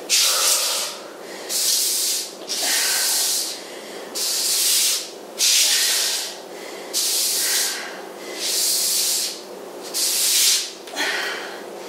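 Exercise sliders under the feet scraping across the floor in a steady rhythm: a hissing rub about every second and a half as the legs are drawn in and pushed back out.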